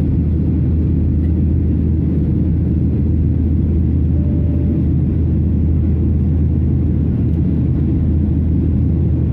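In-flight cabin noise of a Boeing 737-800 with CFM56-7 engines, heard from a window seat over the wing: a steady, loud low rumble of engines and airflow.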